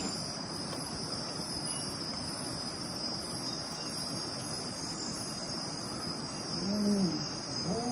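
Night insect chorus with crickets: a steady high buzzing over a soft hiss. Near the end come two low calls that each rise and fall in pitch, from an animal that cannot be identified.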